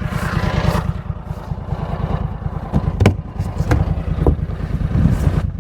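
A hammer knocking four times, a little over half a second apart from about three seconds in, driving a piece of fence hardware in, over a steadily idling engine.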